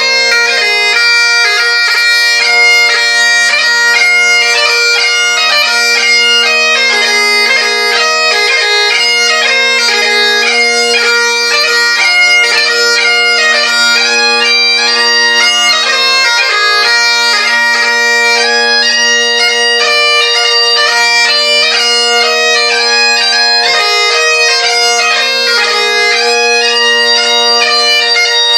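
Solo Great Highland bagpipe playing a competition march, strathspey and reel set. The chanter melody moves quickly with many fast note changes over steady, unbroken drones.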